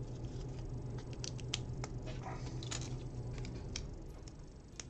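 Plastic Lego pieces being handled and pressed together: scattered light clicks and rattles over a steady low hum.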